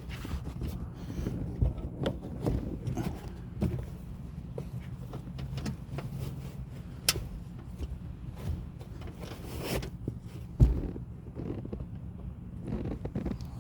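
Hands working on a Jeep rear seat: fabric rustling, plastic and metal parts clicking and scraping, with one sharp thump about ten and a half seconds in.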